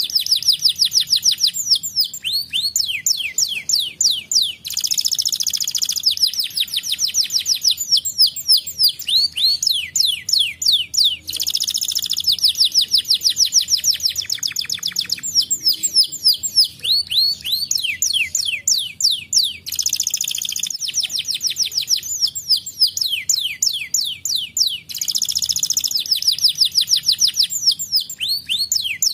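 Canary singing a long continuous song of fast trills, each made of rapid sweeping high notes, with a denser rolled phrase every five to eight seconds.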